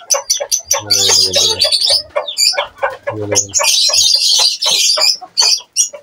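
Aseel chickens clucking and chicks cheeping as feed is scattered for them, with a rustling burst lasting about a second and a half in the middle.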